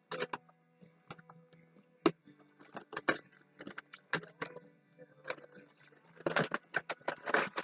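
Airsoft pistol box and packaging being opened and handled: a string of sharp clicks and knocks, with heavier rustling and crinkling of packaging over the last second or two.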